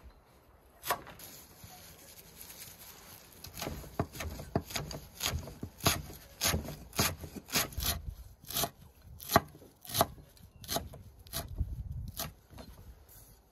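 Chef's knife chopping fresh parsley and dill on a wooden cutting board. One knock about a second in, then steady knocks of the blade on the board, about three a second, that stop near the end.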